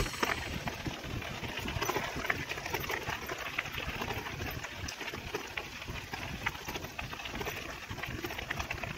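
Bicycle rolling along a dirt-and-gravel trail: tyres crunching over grit, with many small clicks and rattles from the bike and uneven wind rumble on the microphone.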